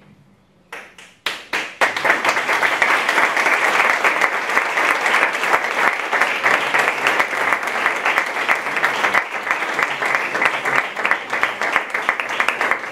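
A roomful of people applauding: a few scattered claps about a second in, building quickly into steady, dense applause.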